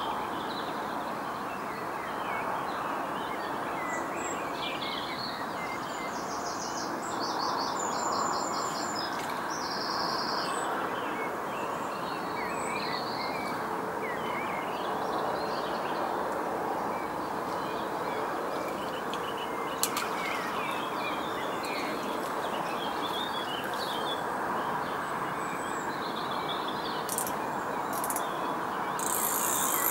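Wild birds chirping and singing in short high calls and trills over a steady rushing background noise. A single sharp click comes about two-thirds of the way through.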